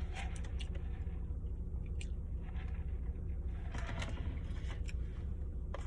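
Faint eating noises, a few soft mouth clicks and brief rustles about two and four seconds in, over a steady low hum.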